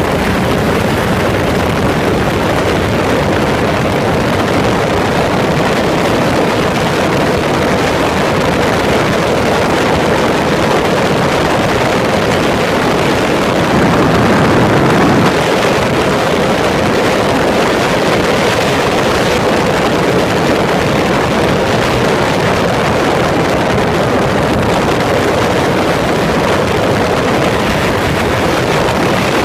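Yamaha SRX400's air-cooled single-cylinder engine running steadily under way, heard from a phone mounted on the tank, with constant wind rush over the microphone. The sound gets briefly louder about halfway through.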